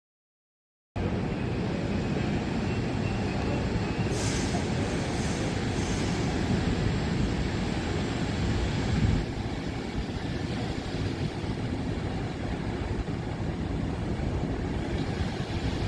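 Mat '64 electric multiple unit running on the rails: a steady low rumble of wheels and running gear that starts abruptly about a second in, with a few brief high squeals about four to six seconds in.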